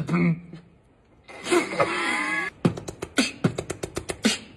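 Human beatboxing. After a brief pause comes a wavering, hissy vocal effect lasting about a second, then a quick run of sharp percussive clicks and hits.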